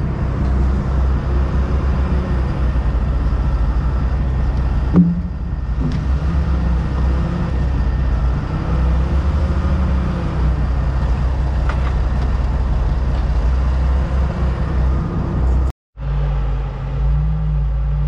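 Heavy machinery engine running steadily, with a sharp knock about five seconds in. Near the end the sound cuts out for a split second, then the engine resumes at a slightly different pitch.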